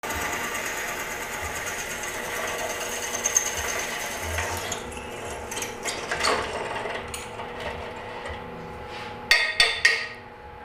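Bench drill press running, its bit cutting into a steel bar with a steady high hiss for the first four or five seconds. Then the motor keeps running with scattered clicks, and three sharp knocks come close together near the end.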